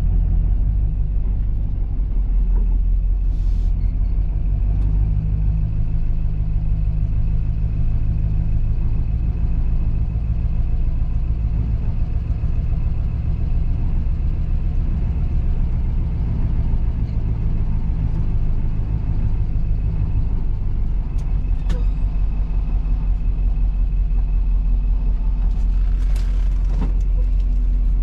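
Vehicle engine running, heard from inside the cab of a service truck: a steady low rumble whose pitch shifts a little about three-quarters of the way through, with a few light clicks near the end.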